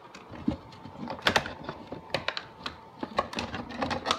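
Funko Pop packaging being handled: irregular clicks and taps of the plastic insert and cardboard box.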